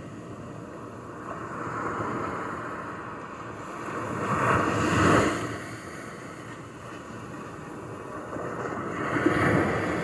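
Small sea waves washing onto a pebble beach, a steady hiss that swells into a surge about five seconds in and again near the end.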